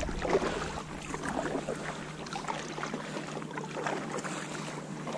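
Light splashing and dripping of water from a kayak paddle stroking through calm water, with small slaps of water against the kayak's hull.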